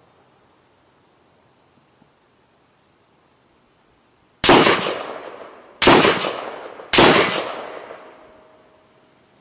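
Three shots from a short-barreled AR-15 rifle, the second about a second and a half after the first and the third a second later, each echoing away over about a second.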